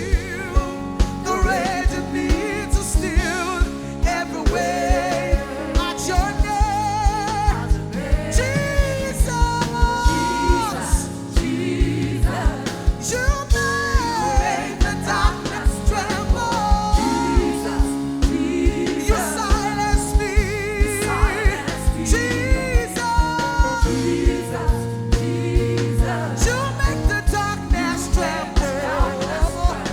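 Live gospel worship music: a church worship band playing under sung vocal lines with wide vibrato, over a steady drum beat of about two hits a second.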